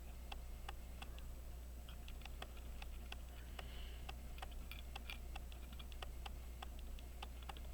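A run of faint, light clicks, a few a second, from tweezers and small brass watch parts being handled while fitting the wheels of a pocket watch movement. A low steady hum runs underneath.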